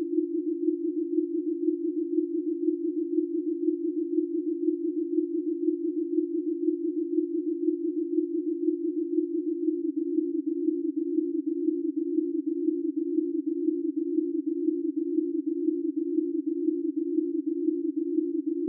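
Ten pure sine tones at consecutive prime-number frequencies, roughly 250 to 400 Hz, sounding together as a steady chord with a rapid, regular beating. About ten seconds in, the chord shifts slightly lower as one set of ten primes gives way to the next.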